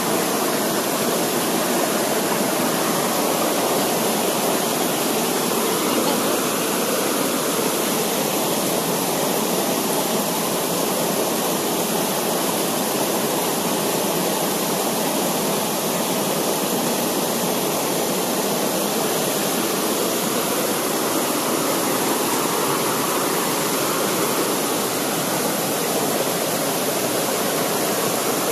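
Steady rush of a rocky mountain stream, water pouring over rocks in an even, unbroken wash of noise.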